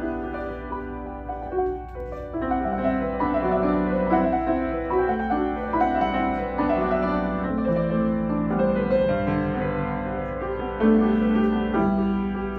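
Grand piano being played: a flowing stream of notes in both hands, sparser for the first two seconds, then fuller and a little louder.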